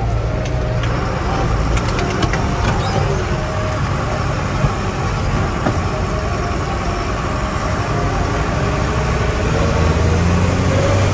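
Truck engine running steadily, with a few light rattles in the first seconds; the engine grows louder near the end.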